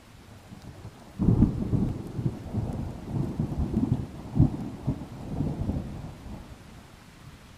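Thunder: a sudden clap about a second in, then a rolling rumble with several louder peaks that dies away over about five seconds, over a steady hiss of rain.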